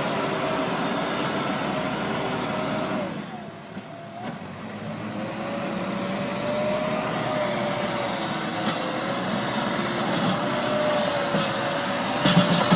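Hidromek 102S backhoe loader's diesel engine running under working load. Its revs and level drop briefly about three seconds in, then build back up and hold with a wavering whine. A few knocks come right at the end.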